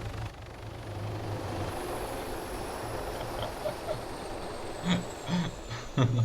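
Helicopter passing, with a high turbine whine that slowly falls in pitch over a steady rush of rotor and wind noise. Three short thumps near the end.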